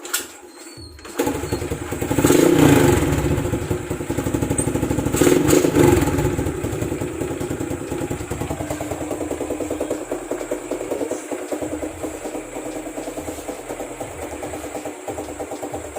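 Honda RS125 motorcycle engine with an aftermarket Apido power pipe exhaust catching about a second in, revved twice, then settling into a steady idle.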